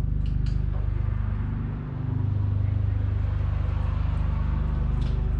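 A machine running with a steady low rumble and a fine, even pulse, dipping briefly about two seconds in.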